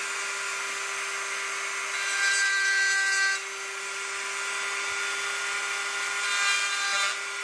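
Nankai mini grinder (handheld rotary tool) running at a steady whine while its engraving bit cuts into a sheet of acrylic. The grinding gets louder and grittier twice, about two seconds in and again near the end, as the bit bites into the plastic.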